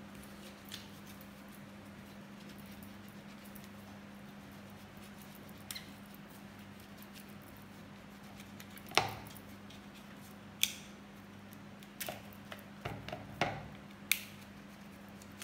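Knife prying dry coconut meat out of its shell: scattered clicks and scrapes of the blade against the hard shell, sparse at first and coming more often and more sharply in the second half, over a low steady hum.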